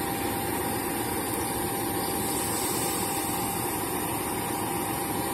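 Steady engine running at a constant pace, with a thin unchanging whine above the rumble.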